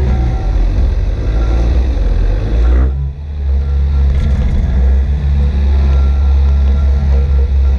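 Engine of heavy farm machinery running steadily with a deep, even hum. About three seconds in, the higher sounds briefly drop out.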